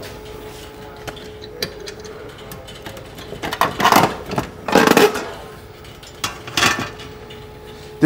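A water heater's control access panel being opened by hand: a few rattling, scraping clatters about three and a half to five seconds in and again near seven seconds, over a steady low hum.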